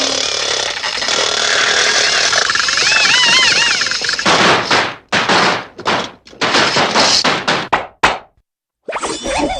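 Cartoon sound effects played one after another. First comes about four seconds of dense noise with warbling pitched glides over it, then a run of six or so separate noisy bursts and a sharp click. After a brief silence near the end, a new effect starts with a wobbling tone.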